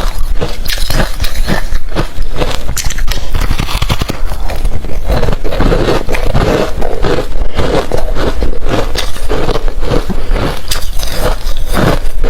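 Close-miked chewing of hard refrozen crushed ice: a rapid, irregular run of crisp crunches and cracks that goes on without a break.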